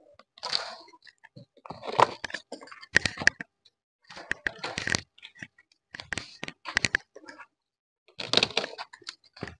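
Wire-mesh rabbit cages rattling and clattering in short bursts of knocks and scrapes as rabbits are handled and put into them.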